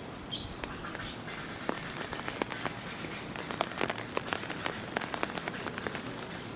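Steady rain falling, with many sharp, separate clicks of drops landing close by, thickest around the middle.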